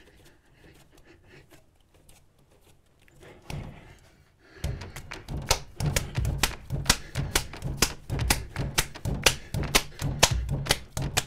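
Reused clay being wedged by hand on a wedging table to work the air bubbles out. After a quiet start and a single thump, heavy thuds with sharp knocks set in about four and a half seconds in, at a steady rhythm of roughly two a second.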